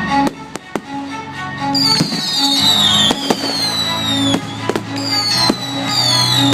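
Fireworks going off over music: sharp bangs about every half second to second and, from about two seconds in, a run of falling whistles from whistling shells.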